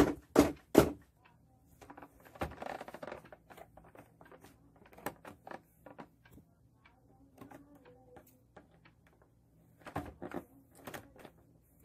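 Scissors snipping through a toy box's cardboard and plastic packaging: sharp snips, loudest in the first second, then scattered clicks and crinkles as the blades work along the edge, with another short run of snips near the end.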